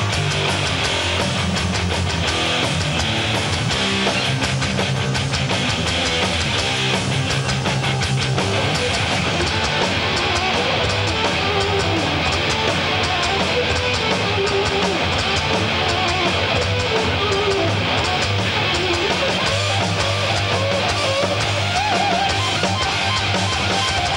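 Heavy metal music: distorted electric guitar riffing over a drum kit, loud and without a break.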